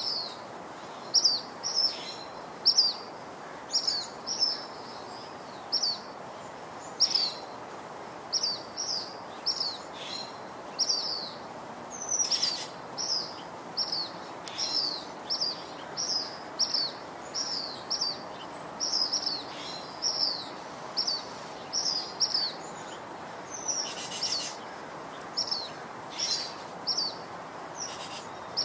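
A small bird chirping over and over, short falling chirps about two a second, over a steady background hiss.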